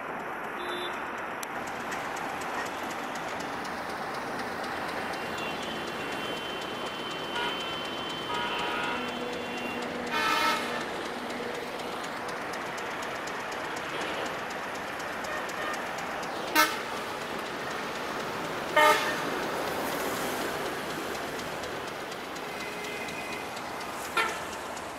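Short vehicle horn toots over a steady hum of city traffic and rail noise: a longer toot about ten seconds in, two sharp loud ones about two seconds apart past the middle, and another near the end.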